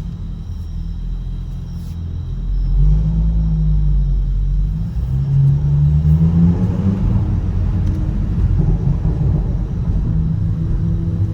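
Audi B9 S4's turbocharged V6, breathing through a stock exhaust with a cat delete, revved up about five seconds in and let fall back, crackling on the overrun. The crackles come from the Stage 1 ECU tune.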